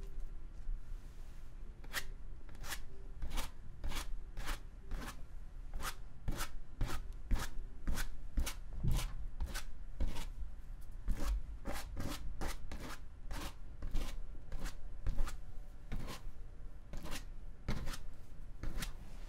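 Paintbrush dabbing and stroking acrylic paint onto canvas in short, separate strokes, roughly one or two a second at an uneven pace.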